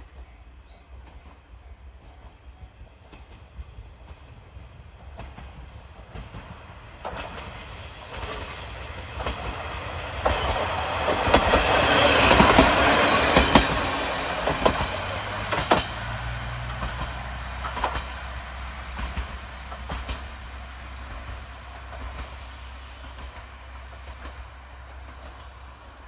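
KiHa 32 single-car diesel railcar approaching and passing close by. Its rumble builds from about seven seconds in and peaks around the middle with a quick run of wheel clicks over the rail joints and a brief high squeal, then fades to a low, steady drone as it moves away.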